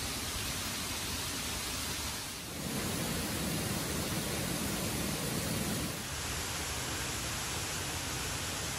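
Steady rushing of a mountain waterfall and its stream, an even hiss of falling water. It turns fuller and deeper about two and a half seconds in, then back to a thinner hiss at about six seconds.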